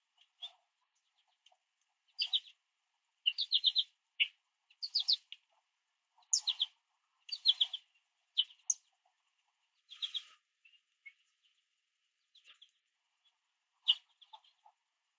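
Songbirds chirping around a backyard seed feeder: quick high chirps in clusters of two to four, coming thick for several seconds and then thinning out near the end.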